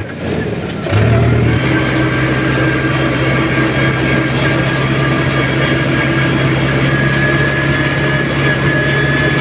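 Sonalika tractor's diesel engine running under way, heard from the driver's seat. It picks up speed about a second in, then runs at a steady pace with a steady high whine above the drone.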